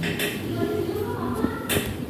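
Hand percussion on a patient's back during chest physiotherapy: a few irregular claps or slaps of the hand on the back, the loudest near the end, with a faint pitched sound in the background.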